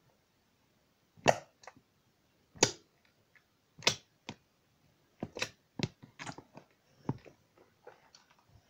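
Slime being pressed and squished by hand in a plastic tub to mix it, each push giving a short squelching slap, about one every second and a quarter at first, then quicker and smaller after about five seconds.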